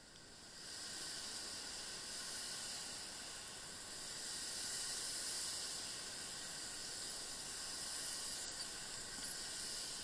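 Steady hiss of tyres on wet asphalt, coming up about half a second in and swelling and easing.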